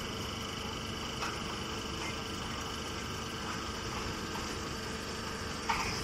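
Straw baling machinery running: a steady mechanical hum with a few short clatters, the loudest near the end.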